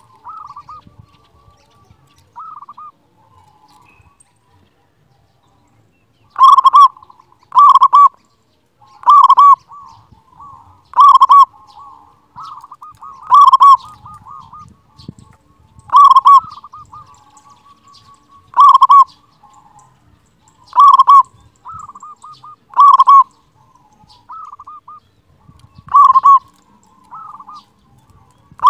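Zebra dove (perkutut) singing: soft coos at first, then from about six seconds in a run of loud staccato cooing phrases roughly every two seconds, with softer coos between them.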